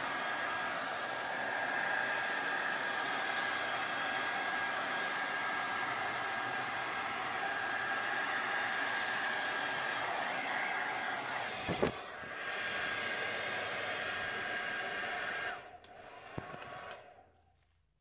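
An old handheld hair dryer blowing steadily on wet epoxy resin, with a constant high fan whine. There is a brief knock about two-thirds of the way in. Near the end the dryer is switched off and its motor spins down to quiet.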